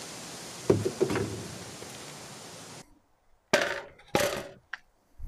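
A steady rushing noise with two knocks in it, which stops abruptly; then four short, sharp clinks and knocks.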